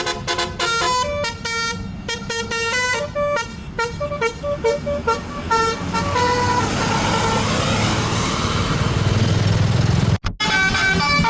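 Indonesian tour bus 'telolet' multi-tone air horn playing a quick tune of short notes. The horn then gives way to the bus's engine running with a rushing noise that grows louder. After a brief drop-out near the end, the horn notes start again.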